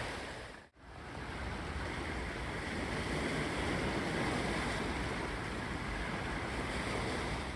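Mediterranean sea surf washing steadily onto the beach, with a brief break in the sound just under a second in.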